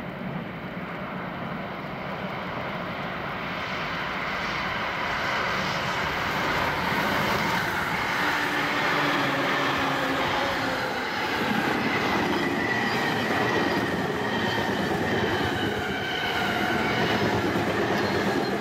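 Tokaido Line electric commuter train passing at speed: the rush of wheels on rail swells as it draws near, then stays loud as the cars run by, with a faint high whine over it in the second half.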